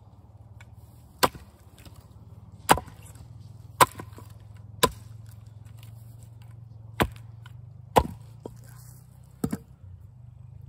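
An axe chopping and splitting fresh, sappy American persimmon rounds on a chopping block: seven sharp blows, irregularly spaced, with pauses between them while pieces are set up.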